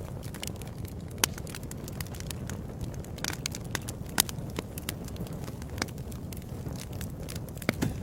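Wood fire in a fireplace crackling: a steady low rumble of the flames with frequent sharp pops and snaps, the loudest about a second in, about four seconds in, and near the end.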